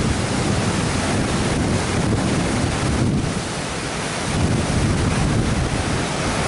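Steady rushing of a small waterfall pouring over rock into a river pool, with wind buffeting the microphone and adding an uneven low rumble.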